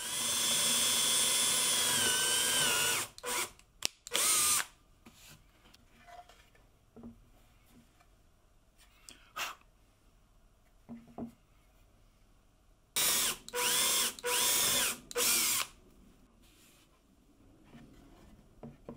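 Electric drill boring into a wooden board with a wood auger bit: one long run of about three seconds whose whine dips slightly near its end, a couple of short trigger blips, then a quiet stretch. Later come three short bursts in quick succession, the motor speeding up and slowing with each.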